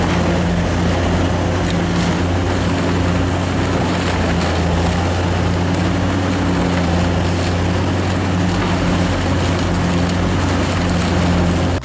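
Large wood shredder running under load: a steady diesel engine drone with the continuous grinding noise of material being shredded, ending abruptly.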